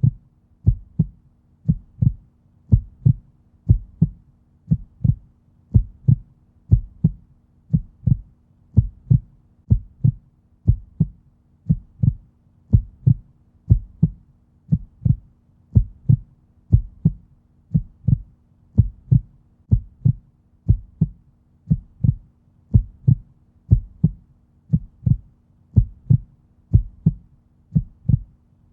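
Heartbeat in a steady lub-dub rhythm at a resting pace of about one beat a second, each beat a pair of soft low thumps, over a faint steady hum.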